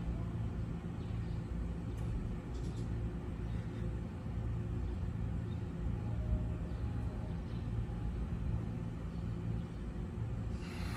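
Stationary JR 209 series electric commuter train idling at the platform, giving a steady low hum and rumble from its onboard equipment.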